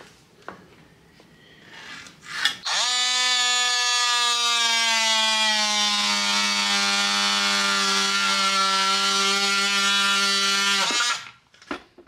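DeWalt DCS356 brushless oscillating multi-tool running for about eight seconds as it cuts laminate bullnose trim to length: a steady buzzing whine whose pitch sags slightly as the blade bites. It starts a couple of seconds in and stops abruptly near the end.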